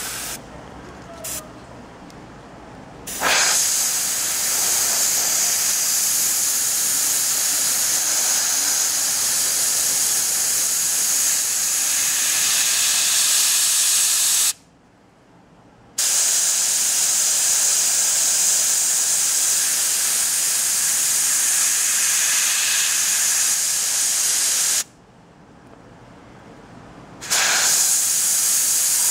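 Airbrush spraying paint: a steady hiss starting about three seconds in, in three long spells with two short breaks of a second or two between them.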